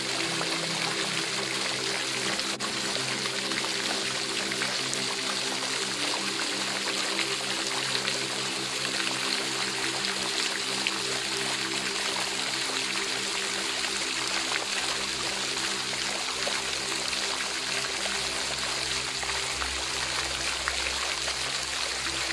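Steady running water, like a stream or fountain, under background music of sustained low chords.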